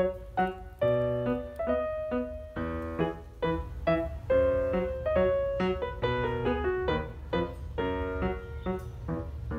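Background music: a piano melody of short struck notes, a few a second, over a steady low bass.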